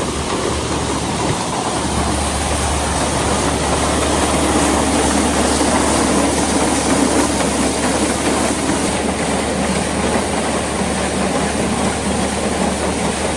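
Tractor engine running steadily at work, driving the SuperB grain dryer's unloading auger as dried corn is run out into a wagon, with a continuous mechanical rattle and rumble.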